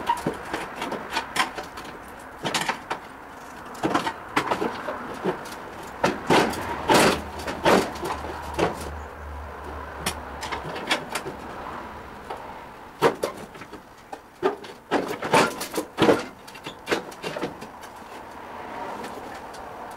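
Irregular metal clanks and knocks, some in quick clusters, as the cooking section of a gas barbecue is pried and worked loose from its stand.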